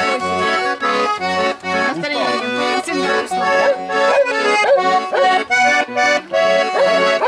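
Accordion playing a lively tune, with rhythmic chords over pulsing bass notes. A dog joins in with a few short sliding howls over the music through the middle.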